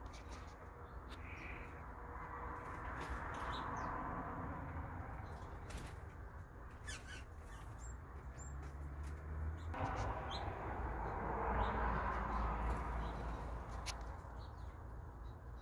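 Scattered short bird chirps and calls over steady low outdoor background noise; the background changes abruptly about ten seconds in.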